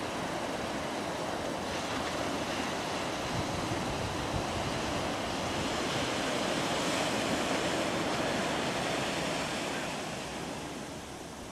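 Small waves breaking on a sandy beach, a steady wash of surf that grows louder through the middle and eases off near the end, with wind buffeting the microphone.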